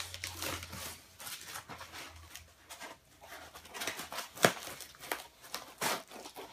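Packaging being handled during unboxing: irregular rustling and crinkling with scattered light clicks and knocks, the sharpest click about four and a half seconds in.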